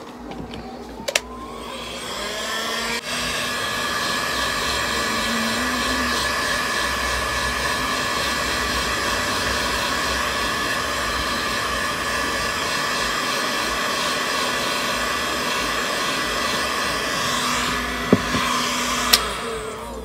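Electric heat gun blowing, drying fresh paint on a custom-painted slide sandal. Its whine rises in pitch over the first few seconds as it comes up to speed, then it runs steadily, and it stops near the end with a couple of sharp clicks.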